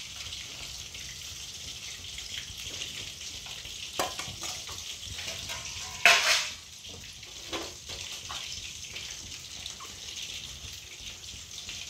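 Fish pieces shallow-frying in hot oil in a steel kadhai, a steady sizzle. A sharp knock about four seconds in and a louder metal clatter of utensils about six seconds in, with a few lighter knocks after.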